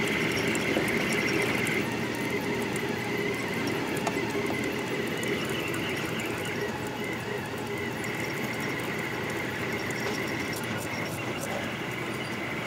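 Delta Rostock 3D printer printing at high speed, its stepper motors giving a steady high whine over a lower hum as the effector moves rapidly.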